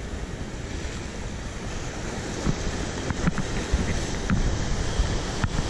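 Sea surf washing on rocks, mixed with wind rumbling on the microphone: a steady rushing noise with a few faint clicks scattered through it.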